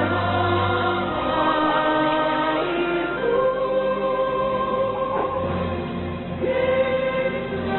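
A song playing: sung voices, choir-like, holding long notes over an instrumental backing.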